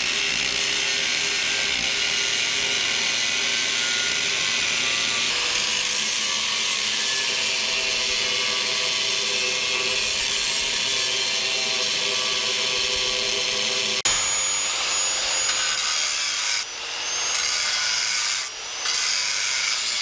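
Corded angle grinder cutting and grinding steel: the motor runs steadily under load over the hiss of the abrasive disc on metal. About two-thirds in the sound jumps, the motor's pitch then wavers, and it dips briefly twice near the end.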